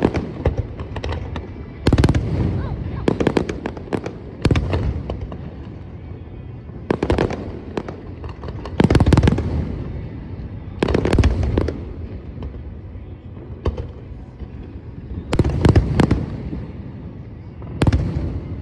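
Aerial fireworks bursting: a run of loud bangs every second or two, some in quick clusters of two or three, each followed by an echoing rumble and crackle.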